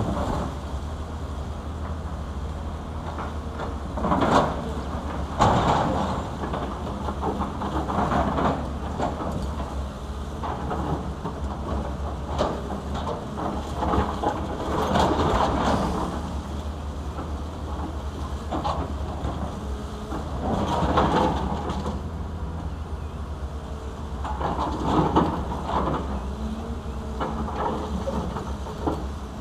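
Diesel engines of several crawler excavators running with a steady low drone, over which steel buckets clank and scrape irregularly as they dig into broken concrete and rock, with a few louder crashes of debris.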